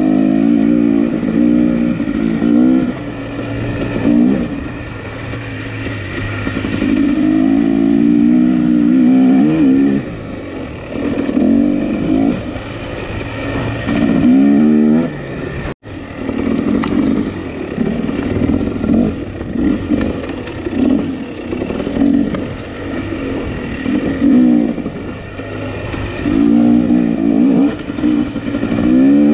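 Two-stroke dirt bike engine being ridden, revving up and down over and over, the pitch rising and falling every second or two.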